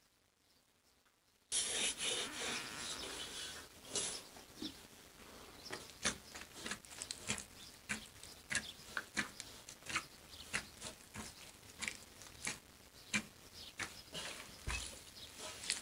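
Hands kneading and squeezing crumbly dough in a stainless steel bowl: a rubbing, rustling sound with frequent sharp clicks, starting suddenly about a second and a half in.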